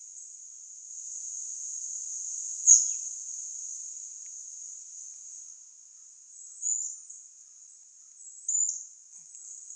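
Steady high-pitched chorus of insects trilling. A sharp chirp cuts in about a quarter of the way through, and two shorter chirps come near the end.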